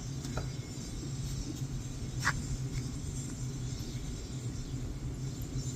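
Steady low outdoor rumble with a constant low hum, with a brief sharp squeak about two seconds in.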